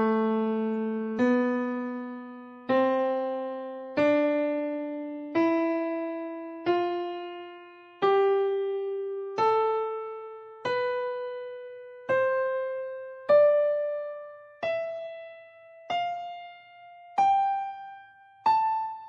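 Piano playing single notes one at a time, about one every 1.3 seconds, each struck and left to die away, the pitch stepping upward note by note in an ascending scale from the C3 range toward B5.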